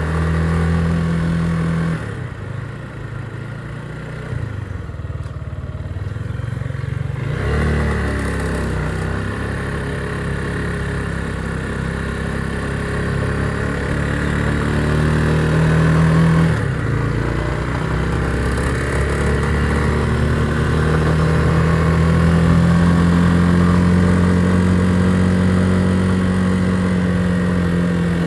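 Motorcycle engine running under way. It eases off about two seconds in, picks up again after a shift around seven seconds, drops briefly near sixteen seconds, then climbs slowly through the rest.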